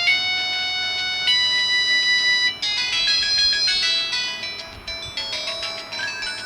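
Polyphonic ringtone playing from a Samsung GT-E1150 mobile phone's speaker: a melody of clean electronic notes, long held notes at first, then a quick run of short notes from about two and a half seconds in, growing quieter toward the end.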